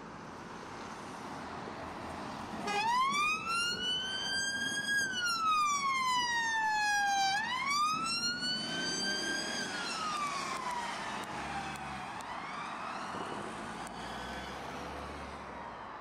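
Police car's electronic siren switched on about three seconds in, sounding a slow wail that rises and falls twice, each sweep about two seconds long. It grows fainter over the second half as the car moves away, over steady road and engine noise.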